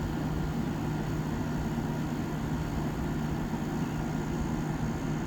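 1987 Montgomery Ward by Frigidaire 7000 BTU window air conditioner running steadily: a low, even hum from its Toshiba rotary compressor under the rush of the fan. The owner thinks the compressor is finally building head pressure.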